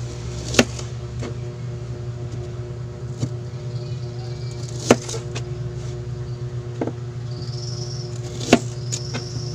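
A kitchen knife slicing a red onion against a plastic cutting board: sharp, irregular knocks of the blade hitting the board, a second or more apart, loudest about half a second in, near five seconds and near the end. A steady low hum runs underneath.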